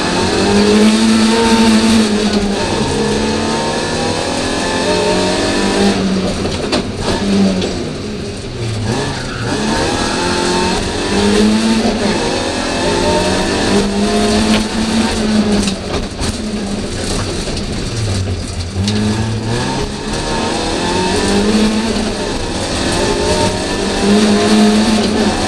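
BMW E30 rally car's engine heard from inside the cabin, revving hard and shifting through the gears, its pitch climbing and falling again and again, with a couple of deeper drops as it slows for corners.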